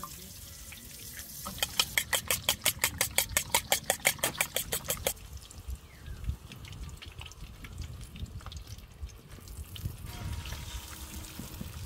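Eggs being beaten with a metal utensil in a ceramic bowl: a quick, even run of clinks, about five a second, starting a second or so in and stopping after about four seconds. After that, sausages sizzle faintly in a frying pan on a camp stove.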